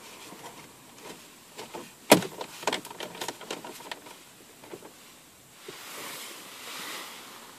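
Round plastic dashboard air vent of a Ford Fiesta Mk6 snapping into its housing with one sharp click about two seconds in. A quick run of lighter plastic clicks follows as it is seated, and a soft rustle comes near the end.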